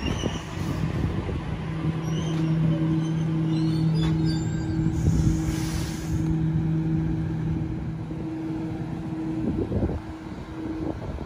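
Waratah electric train running along the platform and slowing, with a steady electric hum that fades out a few seconds before it comes to a stand, and a brief hiss near the middle.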